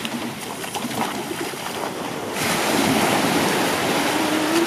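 Shallow water washing and splashing at the shoreline as a shark is hauled from the shallows onto the sand, growing louder about halfway through.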